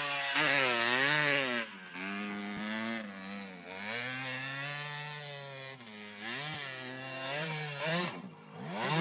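Dirt bike engine revving, its pitch rising and falling with the throttle, easing off about two seconds in and swooping up and down quickly near the end.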